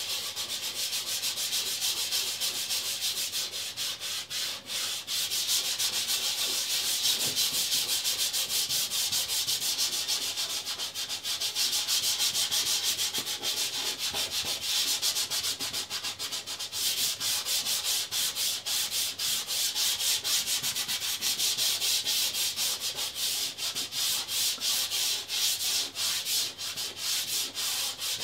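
Palm and fingers rubbing soft pastel into toothy pastel mat to blend the colours: a dry, scratchy hiss made of quick back-and-forth strokes, the strokes more distinct in the second half.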